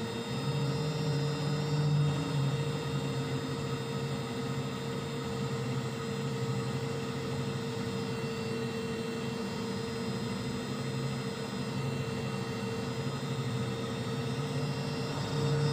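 Ship's deck crane machinery running with a steady hum and a constant mid-pitched whine. Its low drone grows louder near the start and again near the end as the crane works a hanging pallet.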